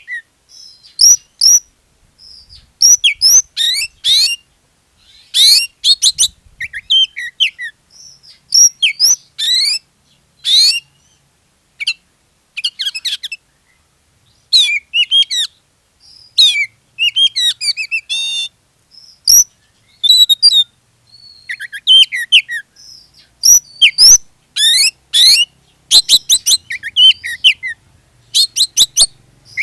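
Oriental magpie-robin (kacer) in full, vigorous song: loud, rapid phrases of high whistles and fast sweeping notes, broken by short pauses. It is the kind of 'gacor' song that keepers play as a lure to set other magpie-robins singing.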